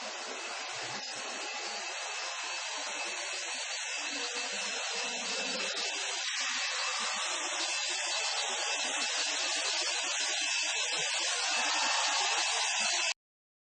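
Industrial induction bar-heating line running: a steady hiss with a thin high tone through it, slowly growing louder, then cutting off suddenly near the end.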